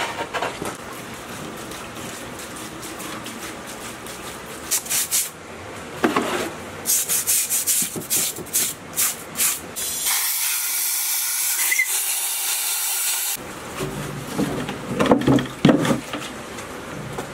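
A brush scrubbing the dirty crankcase of a scrapped diesel engine in a tub, in short quick strokes. About ten seconds in, a steady hiss for about three seconds, then several knocks and clunks as the heavy casting is handled.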